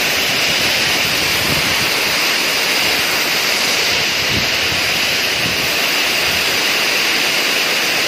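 Steady hiss of heavy rain falling on a river, mixed with the rush of water pouring down a dam spillway.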